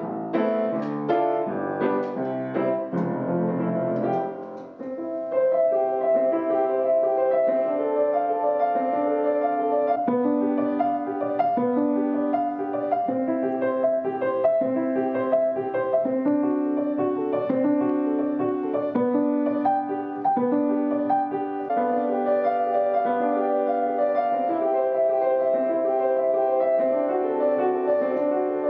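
Bösendorfer grand piano being played, a flowing melody over even repeated accompanying notes, with a short pause and change of passage about five seconds in. The keys play cleanly, with no knocking from the hammer shanks, the pin block having been planed.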